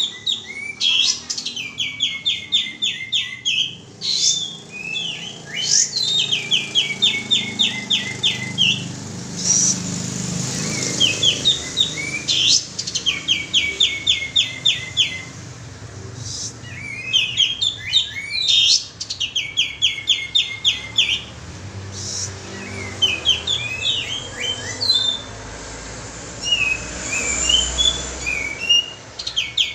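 Kapas tembak bird song played as a lure call: repeated rapid trills, each a run of about ten quick, evenly spaced notes lasting about a second, with short gaps between them. Near the end the song breaks into looser, scattered chirps.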